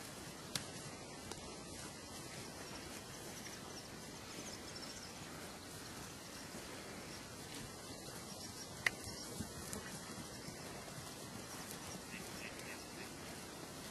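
Rural outdoor ambience: a steady hiss with faint high chirps, and two sharp clicks, one near the start and one about nine seconds in.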